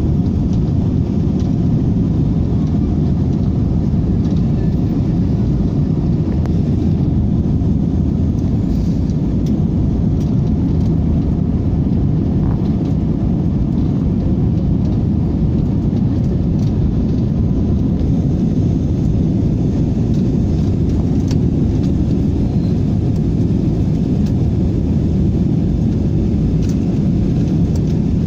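Airliner in flight just after takeoff: a steady, loud low rumble of jet engines and rushing air that does not rise or fall.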